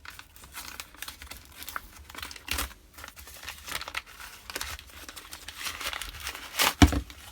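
Paper wrapping around a small gift being torn open and crumpled by hand: irregular crinkling rustles, with one louder burst near the end.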